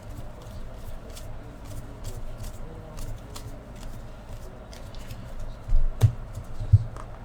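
Trading cards being flipped and handled, with many small sharp clicks and rustles of card stock. Near the end there are a few louder dull thumps.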